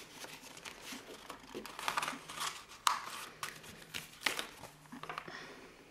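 A sheet of scrapbook paper rustling and sliding against a clear plastic notebook cover as it is slipped in and smoothed flat by hand, with a few sharp clicks of the plastic along the way.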